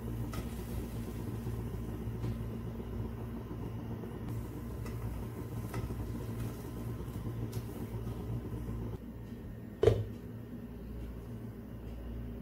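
Steady low hum with a few faint clinks of a steel slotted spoon against a pot, and one sharp clank about ten seconds in, the glass lid being set on the pot.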